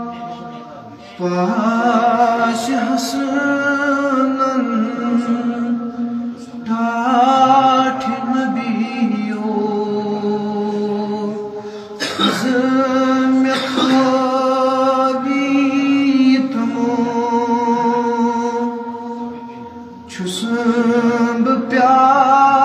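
A man's voice chanting unaccompanied in long, held, ornamented phrases, with short breaks for breath every few seconds.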